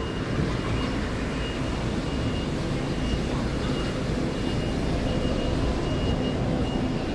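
Steady street traffic noise: car engines and tyres on the road, with a faint high tone that comes and goes.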